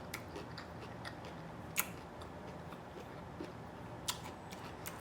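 Faint, close-up chewing and mouth sounds of a person eating, made up of small wet clicks, with two sharper clicks about two and four seconds in.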